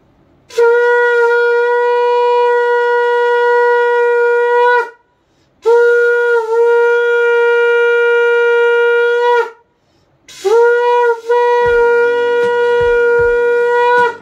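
Conch shell (shankha) blown in three long, loud blasts of about four seconds each, separated by short breaths. Each blast is one steady horn-like note that dips in pitch just after it starts.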